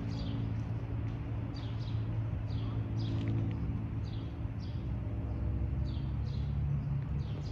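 Small birds chirping: short falling chirps about twice a second, over a steady low mechanical drone.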